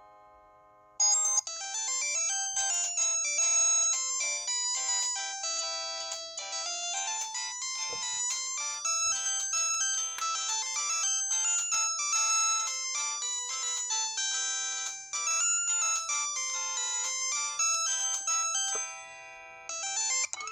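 Polyphonic ringtone from a Samsung SGH-C260 clamshell phone's Yamaha SMAF synthesizer: a busy electronic melody of many overlapping high notes. It starts about a second in, after the fading end of the previous tone, and dips briefly near the end.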